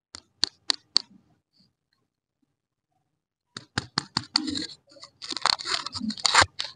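Candy wrapper of a chocolate lollipop crinkling and tearing as it is peeled open by hand. A few sharp crinkles come near the start, then after a pause a dense run of crackling from about halfway through.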